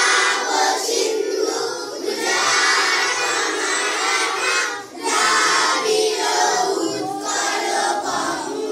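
A class of young schoolchildren singing a morning prayer together as a group, in long loud phrases broken by brief pauses for breath.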